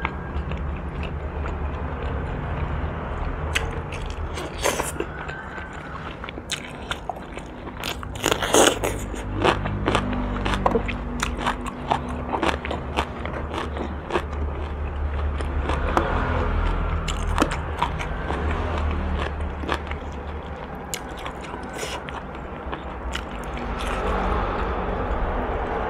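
Close-miked eating sounds: chewing and biting boiled pork-bone meat, with many sharp, wet mouth clicks and smacks that are thickest about a third of the way in. A steady low hum runs underneath.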